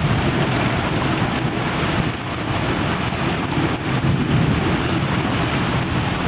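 Heavy rain pouring steadily in a thunderstorm, with a low rumble that swells and fades a few times.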